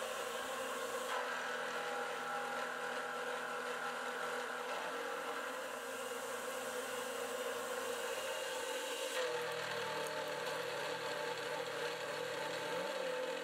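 38 mm four-insert face mill on a 750 W CNC mill spindle at 2500 RPM, cutting aluminium 0.2 in deep: a steady machining whine with several held tones that changes character about a second in and again about nine seconds in. The cut asks about 1 kW of the 750 W spindle, so the spindle is heavily loaded.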